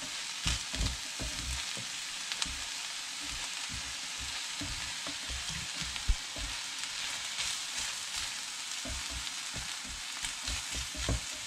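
Flaked halibut, onion and tofu sizzling steadily as they fry in an enamelled pan, stirred and turned with a silicone spatula, with irregular soft knocks as the spatula works through the food against the pan.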